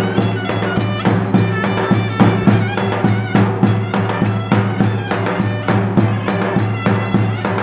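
Davul, the big double-headed folk drum, beaten in a fast, even dance rhythm, with a reedy wind instrument playing a folk dance melody over a held drone note.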